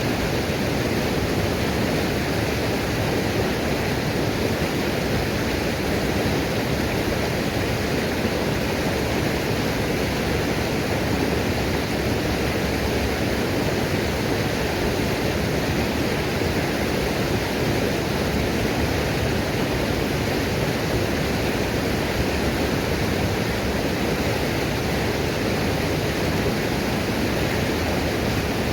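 Waterfall pouring steadily: an even, unbroken rushing of falling water, heaviest in the low and middle tones.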